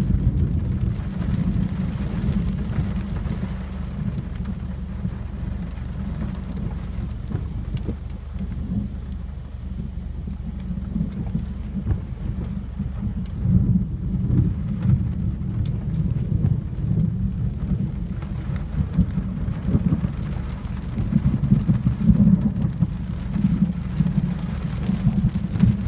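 Thunder rumbling, swelling louder a few times in the second half, over steady rain, heard from inside a car.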